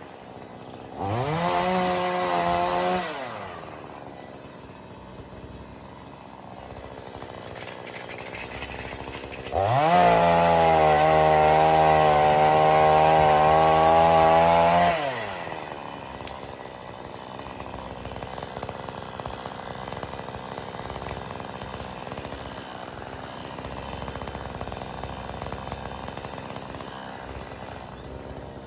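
Chainsaw revved up to full throttle twice, briefly about a second in and again for about five seconds near the middle, each time falling back to a lower running speed.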